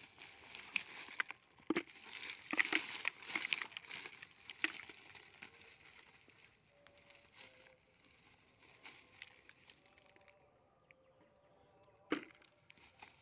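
Rustling and crackling of dry leaves, fibrous roots and soil as a wild turmeric clump is pulled apart by hand. It is busiest in the first five seconds and then thins to scattered ticks, with one sharp knock near the end.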